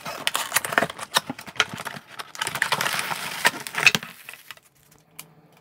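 A cardboard box being opened and a bubble-wrapped package pulled out of it: dense rustling and crackling of cardboard and plastic wrap with many sharp clicks, dying away about four seconds in.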